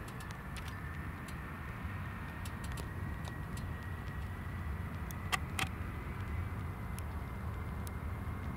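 Steady low rumble of distant engines, with a faint high whine slowly rising in pitch and a few scattered sharp clicks.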